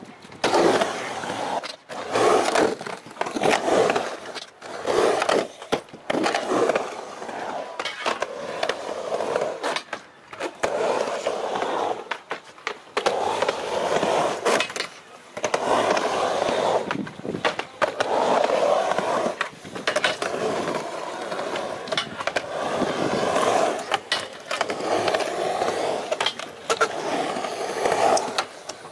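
Skateboard wheels rolling over concrete ramp and bowl transitions, broken by sharp clacks and slaps of the board hitting and landing during tricks, in a string of short runs with brief gaps between them.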